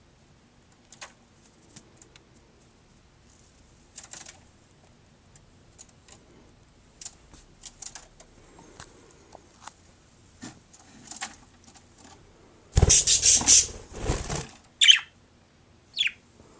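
Budgerigar bathing: light scattered splashes and patters, then about a second and a half of loud wing-flapping in the bath water near the end, followed by two short downward chirps.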